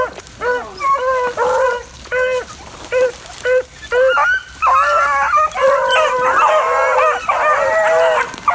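A pack of beagles baying as they run a rabbit. The calls come as short barks one after another, then from about halfway several hounds give voice at once in an overlapping chorus.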